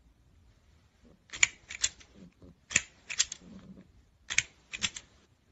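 Plastic crocodile grabber toy on a scissor arm clacking: sharp plastic clicks in pairs, three times, about a second and a half apart.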